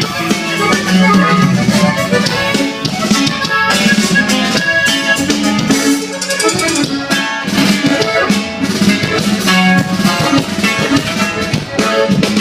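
Instrumental break of a norteño song: accordion melody over bass and a steady drum beat with shaker.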